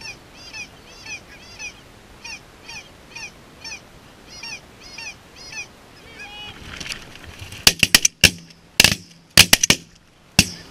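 Geese calling, a steady string of short high yelps about two a second. Then, from about three-quarters of the way in, a rapid volley of shotgun shots: about eight sharp blasts in three seconds, much louder than the calls.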